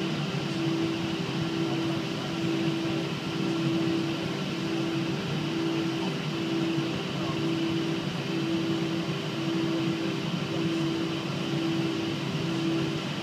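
Cabin noise of a Boeing 777-200ER on the ground: a steady rush of engine and air-conditioning noise with a low hum. Over it a droning tone pulses on and off about one and a half times a second.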